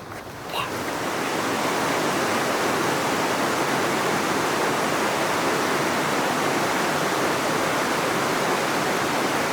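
Steady rush of flowing water that swells up over the first second or two and then holds even.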